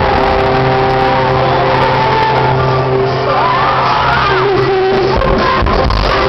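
Live pop band heard from among the audience in a large arena: a held keyboard chord and a voice sliding up and back down over it, with fans shouting. Drum hits come back in near the end.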